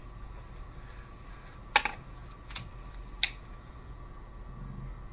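Air pistol being loaded with a dart and closed up for the shot: a sharp metallic click nearly two seconds in, then two lighter clicks over the next second and a half.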